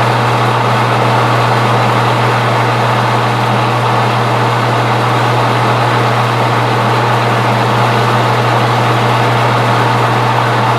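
Metal lathe running with a steady hum, taking a light facing cut across the face of bar stock.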